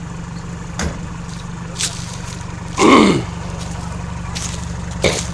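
Range Rover engine running steadily at low revs as it crawls over rocks, with a few short knocks and, about three seconds in, one loud short sound that drops sharply in pitch.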